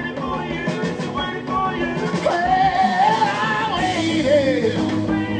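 Live rock and roll band playing an instrumental break between vocal lines, with a saxophone melody over guitars and drums.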